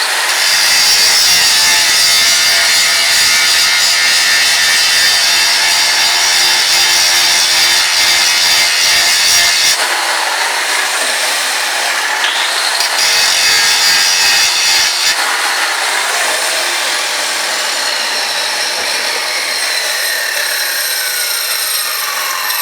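Angle grinder grinding a steel axe head. The disc bites hard for about ten seconds, eases off, and presses in again briefly. A falling whine follows in the last few seconds as the grinder's pitch slides down.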